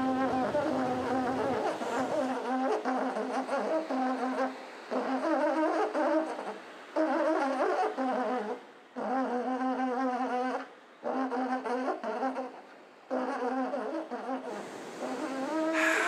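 A buzzy, brass-like horn plays long held low notes in phrases of one to two seconds, about six in all, each broken off by a short pause.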